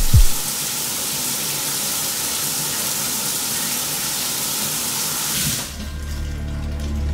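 Steady hiss of running water that stops abruptly about five and a half seconds in. Near the end a low, dark music drone takes over.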